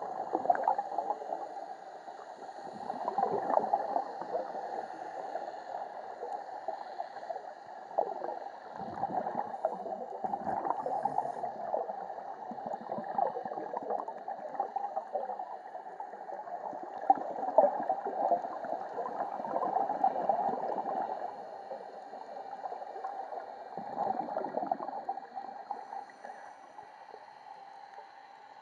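Scuba divers' exhaled bubbles from their regulators gurgling, heard underwater in swells every few seconds with each breath out.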